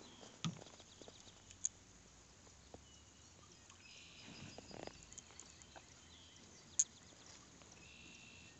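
Quiet calm-river ambience with faint high bird calls in the distance, broken by a few sharp clicks and knocks of gear in the canoe, the loudest about two-thirds of the way through.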